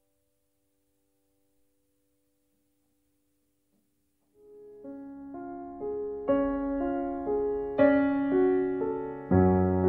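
The last grand piano chord dies away to near silence. About four seconds in, solo piano music begins and builds, one note or chord after another, growing louder.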